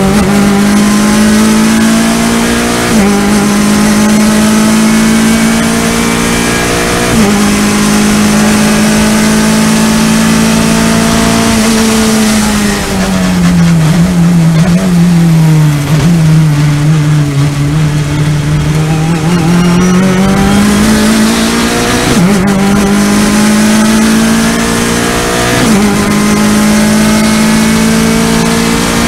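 Race car engine heard from inside the cockpit under hard acceleration. Its pitch climbs and drops back in steps several times, then sags and recovers for a few seconds midway, over steady wind and road noise.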